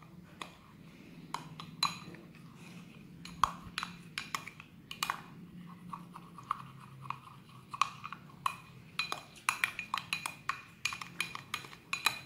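Metal teaspoon stirring a thick cocoa mix in a drinking glass, clinking irregularly against the glass, the clinks coming faster and closer together in the last few seconds. A faint steady low hum runs underneath.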